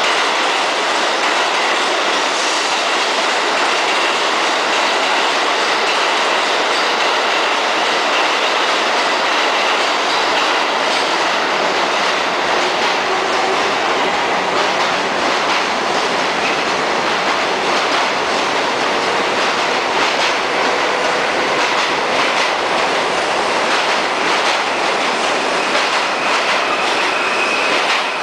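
New York City Subway R44 train running through a station: a loud, steady noise of steel wheels on rail, with scattered clicks over rail joints and a faint high wheel squeal at times.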